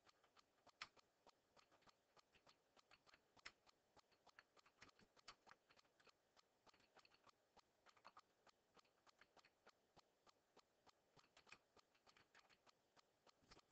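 Faint computer keyboard typing: irregular keystroke clicks, several a second with short pauses.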